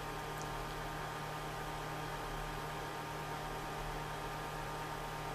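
Steady electrical hum with hiss: the recording's background noise, with no distinct event standing out.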